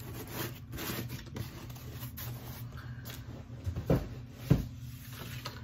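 Rustling and handling of packaging and small items, with two sharp knocks about a second and a half before the end, half a second apart, over a steady low hum.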